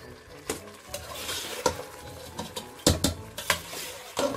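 Metal spoon stirring chunks of mutton and potato in an enamel pot, clinking and scraping against the pot's sides and bottom several times, with the sharpest knocks about three seconds in.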